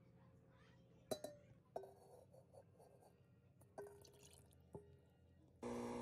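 Near silence broken by about five faint, sharp clinks, each ringing briefly like a small hard object tapping glass or metal.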